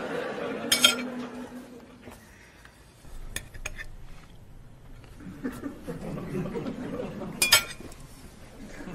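Forks and knives clinking and scraping against plates and bowls during a meal, with a few sharp clinks, the loudest about a second in and another near the end.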